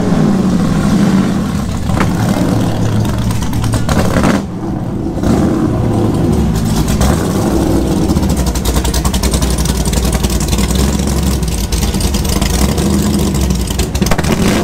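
Classic sports racing car engine running at low speed as the car creeps forward, its revs falling away just at the start.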